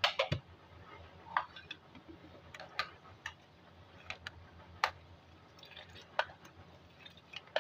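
Metal ladle stirring milk and tea leaves in a metal saucepan: about ten irregular clinks and taps of the ladle against the pan, the first with a duller knock.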